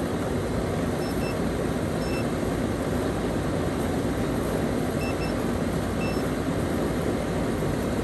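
Lennox central air-conditioning condensing unit running close by, its fan and compressor giving a steady, even rush of noise. A few faint short electronic beeps, twice as a quick pair, come from the digital refrigerant gauge manifold hooked to it.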